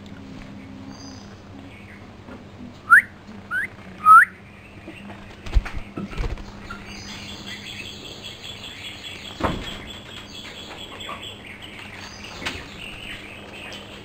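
Common myna calling: three short, sharp rising chirps in quick succession a few seconds in, then a longer high buzzy call midway. A few dull thumps are heard around the middle.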